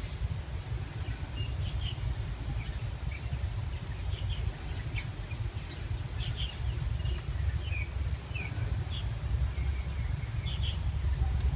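Small birds chirping here and there, short high calls scattered throughout, over a steady low rumble.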